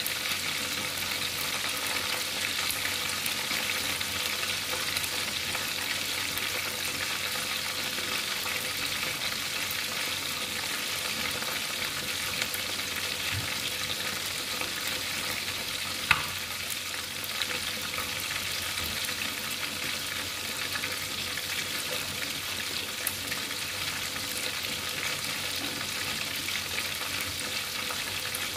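Whole tilapia frying in hot oil in a pan: steady sizzling with scattered small crackles, and one sharper pop about halfway through.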